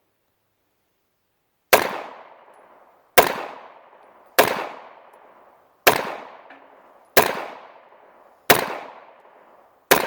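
Seven shots from a Star semi-automatic pistol, fired at a steady pace roughly every second and a half, each crack trailing off in a short echo. The first comes almost two seconds in. Every round of the remanufactured ammunition fires, with no light strikes.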